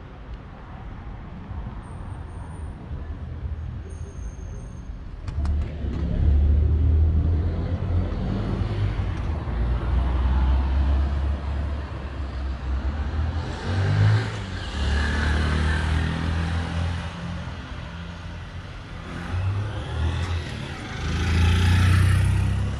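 City street traffic: several cars driving past, their engine and tyre noise swelling and fading as each one goes by, the loudest near the end.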